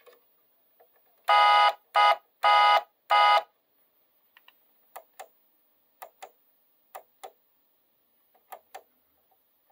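An electronic horn or buzzer tone sounding four short beeps in quick succession. A few seconds later come four pairs of light clicks, roughly one pair a second.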